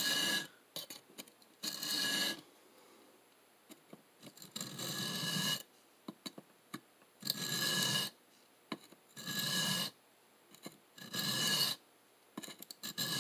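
Steel knife blade (CPM M4) drawn across a diamond sharpening plate in single strokes: about seven scrapes, each roughly a second long and about two seconds apart, with a ringing note in each. This is freehand grinding of the edge bevel back toward the sharpening choil.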